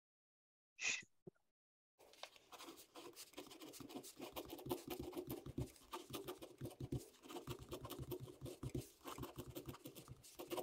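Ballpoint pen writing on squared paper, a rapid run of scratchy strokes starting about two seconds in. A single brief sound comes about a second in, before the writing.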